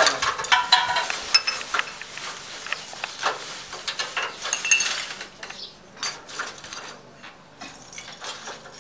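Lumps of charcoal clacking and rattling against one another and the perforated metal brazier as they are packed in by hand to lay the fire. The clacks come thick and fast for the first five seconds or so, then more sparsely.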